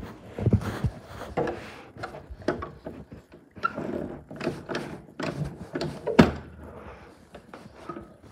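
Irregular knocks, thuds and handling rustle from a handheld camera carried through a house, with a door being opened into a small room. The loudest thud comes about six seconds in.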